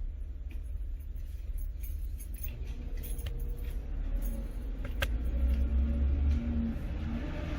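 A low rumble that swells about five seconds in, with a faint hum over it and a couple of sharp clicks.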